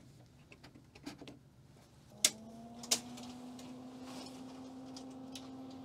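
Light clicks of a circuit board being pushed into its card slot in a Sony PCM-1630 processor. About two seconds in, a sharp click starts a steady low hum that rises slightly in pitch at first, and a second click follows.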